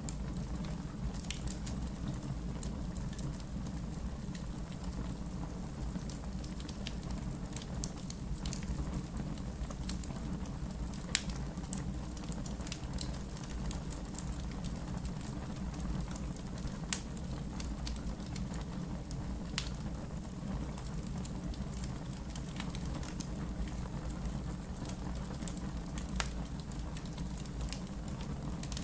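Wood fire burning in a fireplace: a steady low rumble of flames with sharp, irregular crackles and pops scattered throughout.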